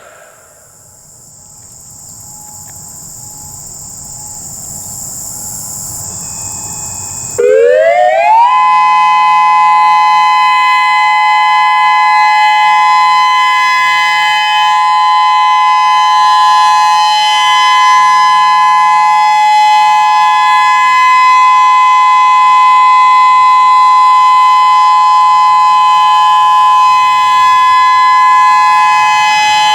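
Whelen WPS-3016 electronic outdoor warning siren sounding its test signal. A high hiss grows louder for about seven seconds, then the siren comes in with a quick rising glide and settles into a loud, steady two-note chord that holds without wailing.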